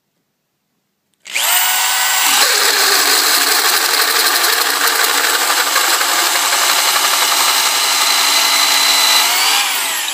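Electric drill turning a Lenox bi-metal hole saw, cutting a tenon into the end of a pine pole. It starts about a second in with a rising whine, runs steadily under load, then slows with a falling whine near the end.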